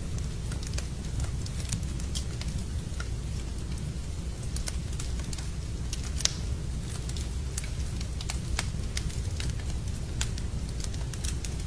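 Wood fire crackling in a fireplace: scattered sharp pops and snaps over a steady low rumble, with one louder pop about six seconds in.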